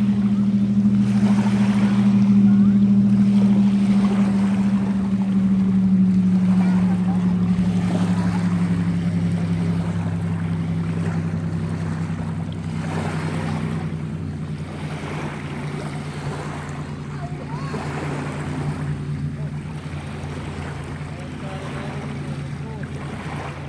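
A motorboat's engine drones steadily, its pitch slowly falling and the sound gradually fading, over wind and water noise.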